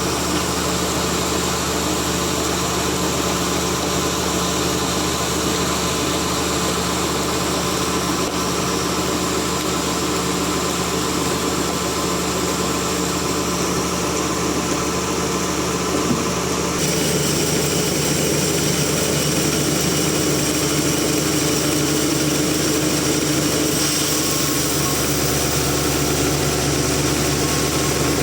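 Sawmill machinery running steadily, a loud engine-like drone with several steady tones under a hiss. About 17 seconds in the tone shifts and the sound gets slightly louder, with a single brief click just before.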